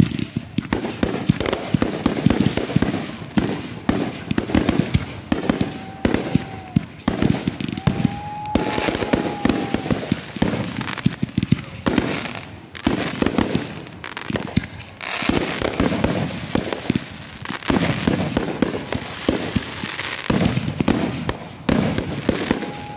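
Consumer fireworks going off in rapid succession: dense crackling pops and bangs from ground-launched cakes and aerial bursts. Two drawn-out whistle-like tones rise over the popping, one about six seconds in and a longer one around nine seconds.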